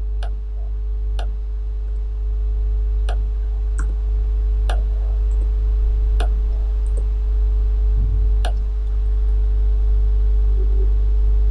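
Low, steady background music, with a computer mouse clicking now and then, about eight sharp clicks at irregular intervals.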